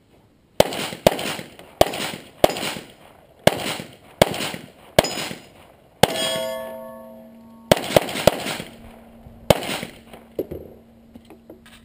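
About a dozen handgun shots fired at an uneven pace during a practical shooting stage, some in quick pairs, each with a short echo. About six seconds in, a hit steel target rings with a clear metallic tone that fades away over a second or so.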